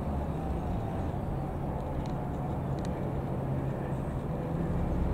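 Steady drone of a light aircraft's piston engine, holding an even pitch.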